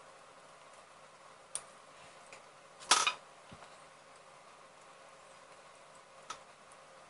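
Handling noise of a plastic case fan and its cable against a metal-finned graphics-card heatsink: a few light clicks, with a short cluster of louder knocks about three seconds in.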